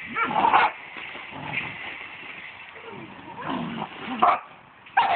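Dogs barking and yipping in play, in three short bouts: one at the start, one around three and a half to four seconds in, and one near the end.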